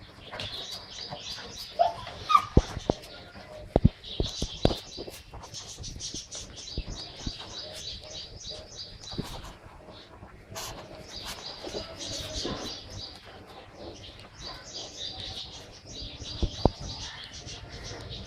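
Puppies playing: scattered sharp knocks and bumps, loudest twice, over a near-constant high-pitched chirping.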